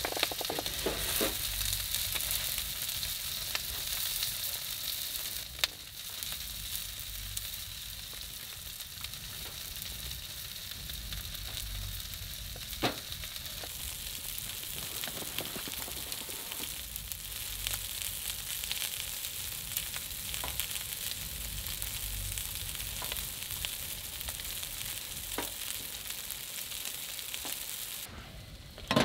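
Meat sizzling steadily in an aluminium-foil tray on the hot top of a small wood-burning camp stove, with two sharp clicks along the way.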